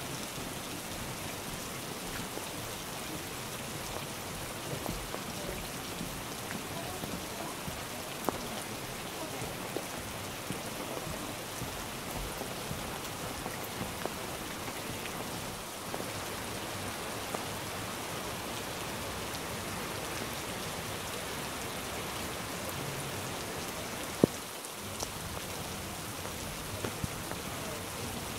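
Heavy rain falling steadily, with scattered taps of drops striking nearby surfaces, and one sharper click near the end.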